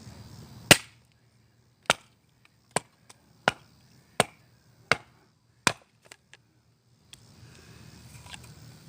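Swiss Army surplus hatchet chopping into a log, seven sharp strikes of steel into wood at about one every three-quarters of a second, the first the loudest, followed by a couple of faint knocks.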